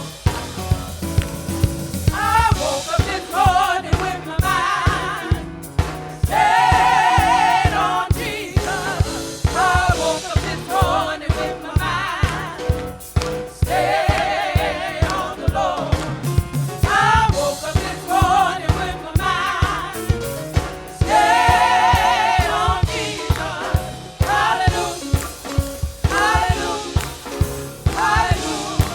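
Gospel choir singing with vibrato over a band with a steady drum beat.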